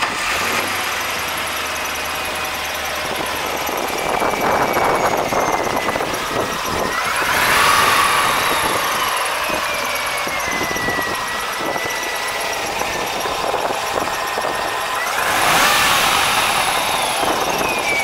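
Chevrolet Corvette 5.7-litre V8 running with the hood open. It is revved twice, about eight seconds in and again near the end, and each rev is followed by a high whine that falls in pitch as the engine settles back.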